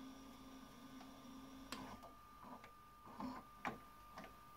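Faint irregular clicks and clunks from an LG DVC5930 DVD/VHS combo recorder as its front-panel buttons are pressed, over a low hum that dies away about two seconds in.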